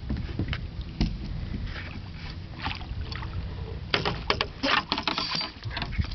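Steady low wind-and-water rumble on a small open fishing boat, with scattered knocks. A quick run of sharp knocks and clatter comes about four seconds in.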